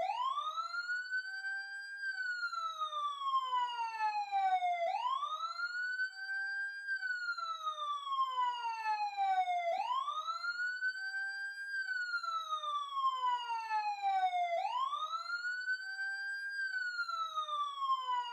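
Ambulance siren sounding a wail pattern. Each cycle rises quickly in pitch over about two seconds, then falls slowly over about three, repeating about every five seconds, four times in all.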